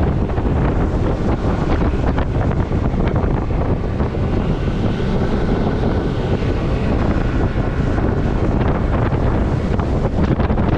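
Boat under way, its motor and the rush of wind and water, with heavy wind buffeting on the microphone.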